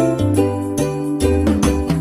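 Music: a bass line under a bright, higher melody, with a regular beat.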